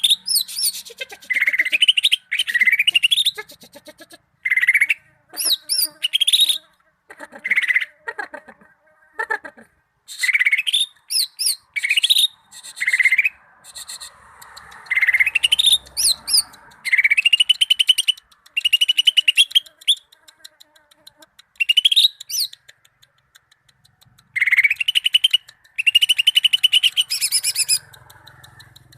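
Cucak ijo (leafbird) singing: phrase after phrase of rising whistled notes and fast chattering trills, each burst about a second long with short pauses between.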